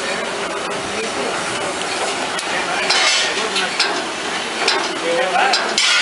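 Steady hiss with scattered metallic clinks and scrapes from hand work on a diesel engine, with louder bursts of hiss about three seconds in and near the end.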